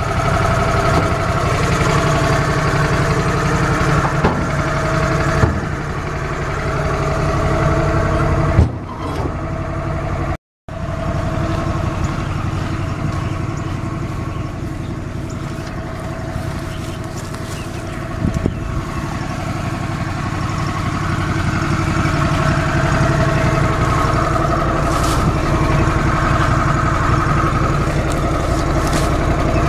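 Toro Workman utility vehicle's engine running steadily, with a few short knocks along the way.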